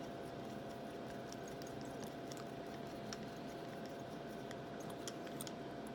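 Faint, scattered small metal clicks and ticks as a screw is driven into the top of an American Lock 5200 padlock with a small screwdriver, over a faint steady hum.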